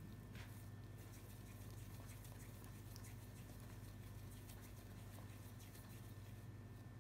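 Soft, sticky yeast dough being pulled apart and squeezed by oiled hands: a faint patter of small tacky clicks and squelches over a low steady hum.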